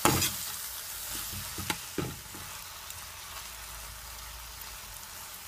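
Corned beef with herbs and seasoning sizzling as it fries in vegetable oil in a hot pot, with a steady hiss. It is being stirred, and the utensil knocks against the pot at the start and twice at about two seconds in.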